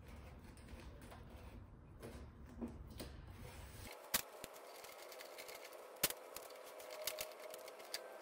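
Masking tape being pulled from the roll and pressed down by hand onto a car's rear hatch: faint crackling and scattered small clicks, with a couple of sharper snaps about four and six seconds in.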